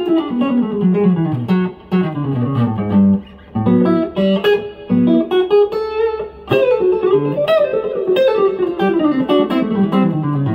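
Fender Player Series Telecaster electric guitar, played through a Fuchs amp head with no pedals, playing country licks. Quick runs of plucked single notes step down in pitch, broken by a few short pauses.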